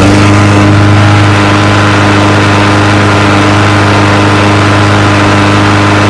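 DR push mower's small single-cylinder engine running steadily at an even speed, now that a dirty spark plug has been replaced with a new one.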